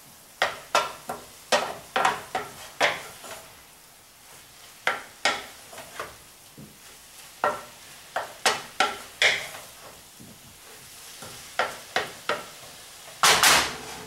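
Wooden spoon stirring and scraping browned ground beef in a skillet in irregular strokes, blending in chili powder and cumin, over a faint sizzle from the hot pan. One louder, longer stroke comes near the end.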